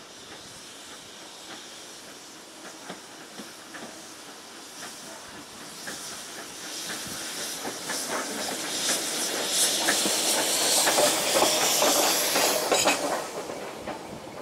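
0-6-0 saddle tank steam locomotive passing close by, hissing steam, with sharp clicks from its wheels on the rails. The hiss builds as it approaches, is loudest near the end, and then falls away quickly.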